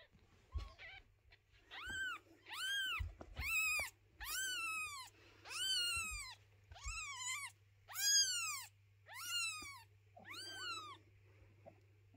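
Newborn kitten mewing: about nine shrill calls, roughly one a second, each rising and falling in pitch. These are a blind newborn kitten's distress calls while it is picked up and handled.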